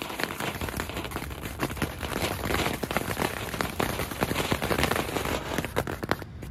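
Small Weco Volcano ground-fountain fireworks spraying sparks with a dense crackle of many quick pops, cutting off suddenly near the end.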